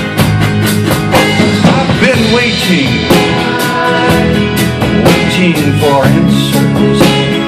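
Live country-rock band playing a song: guitar, bass and drums with a man singing lead, drum hits keeping a steady beat.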